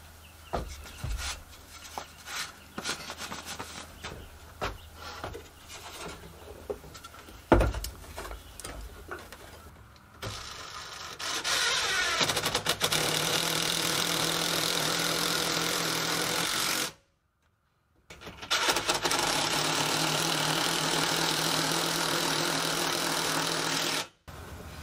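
Scattered knocks and clicks as a wooden block is handled and set against a plastic dashboard. Then a cordless power driver runs in two long, steady spells, driving fasteners to bolt a scrap-wood brace to the dashboard's underside.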